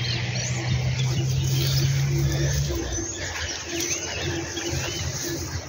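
Birds chirping in short, curling whistled calls, with a dove's low, repeated cooing underneath. A low steady rumble runs under them and stops about halfway through.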